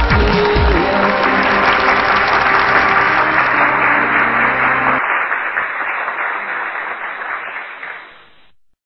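Audience applauding over the last held chord of a song, which cuts off about five seconds in; the applause then fades away.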